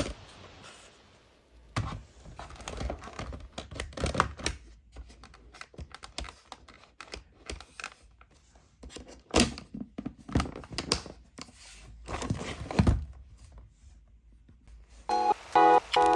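Irregular clicks, knocks and rustling from parts of a Vorwerk Kobold vacuum cleaner being handled, with the motor not running. Louder knocks come around the middle. Near the end, music with a plucky, beeping tune starts.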